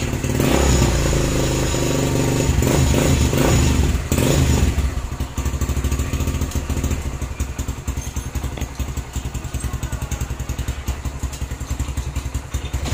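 Kawasaki Barako II motorcycle's single-cylinder four-stroke engine running through a newly fitted chicken-pipe muffler. It revs for the first few seconds, then settles about four and a half seconds in to an even idle of rapid exhaust pulses.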